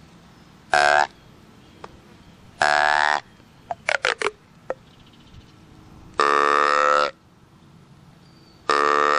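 Hand-blown deer call, a wooden barrel with a black ribbed tube, sounding four reedy calls: a short one, a half-second one, then two longer ones of about a second each. A quick cluster of short sharp sounds comes between the second and third calls.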